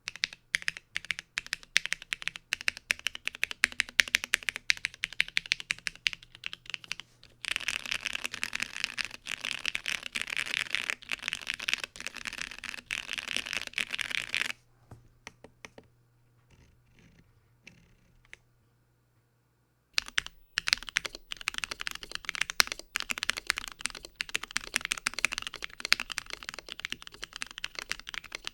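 Fast typing on a plateless OrangeBoy Ergo mechanical keyboard with stock JWK black linear switches and PBT keycaps, a dense run of keystroke clacks. About halfway through it drops to a few scattered taps and a short pause. The typing resumes near the end with the board now tape- and Tempest-modded.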